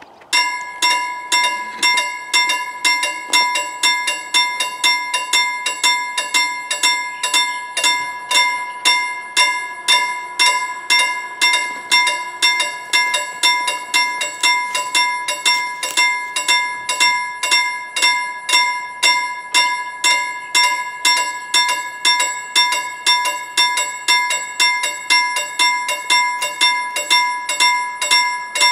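Level crossing warning bell ringing in a steady, even rhythm, starting suddenly as the crossing activates and its barriers come down for an approaching train.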